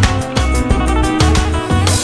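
Background music with a steady beat, bass notes and plucked guitar.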